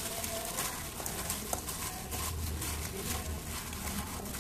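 Raw chicken wings being squeezed and kneaded in a spice marinade by a plastic-gloved hand in a stainless steel bowl: irregular squishing and plastic rustling.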